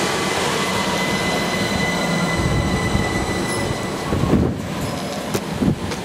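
Southern Electrostar electric multiple unit running past at speed: a steady rush of wheels on rail with a thin high whine that fades out about halfway through. Two low buffets of wind hit the microphone near the end.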